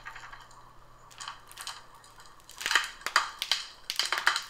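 Thin clear protective plastic film crinkling and crackling as it is peeled off a laptop lid, the crackles growing louder and denser in the second half.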